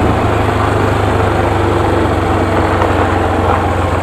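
Motorcycle engine running at a steady, even pace, with a dense rush of noise over it.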